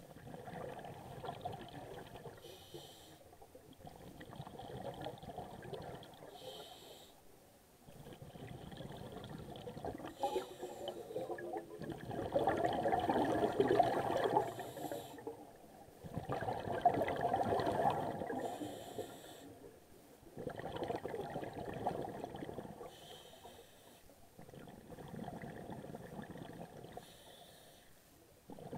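Scuba diver breathing through a regulator underwater: a short hiss on each inhale, then a longer burst of bubbling on each exhale, repeating about every four seconds, with the exhales loudest in the middle.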